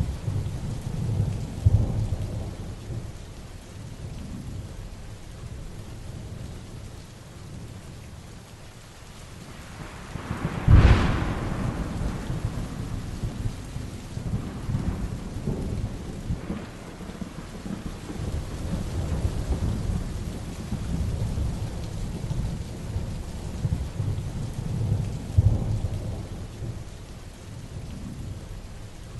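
Heavy, steady rain with rolling thunder rumbling underneath; about eleven seconds in a close, sharp thunderclap cracks loudly and rumbles away over a few seconds.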